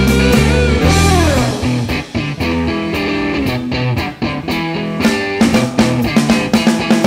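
Rock music with electric guitar and bass; a guitar note slides down about a second in, and a steady beat picks up near the end.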